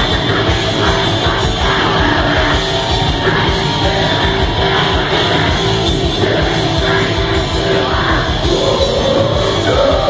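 Heavy metal band playing live and loud, with a vocalist singing over the band.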